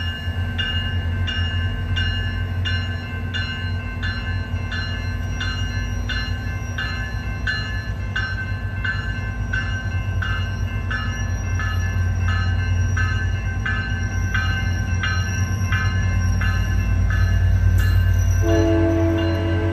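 Railroad crossing bell ringing steadily at about one and a half strokes a second while a SunRail commuter train rolls through the crossing into the station with a low rumble that grows louder. Near the end the bell stops and a steady mid-pitched tone comes in.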